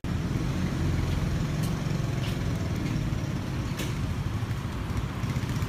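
Steady rumble of street traffic, with a few faint clicks.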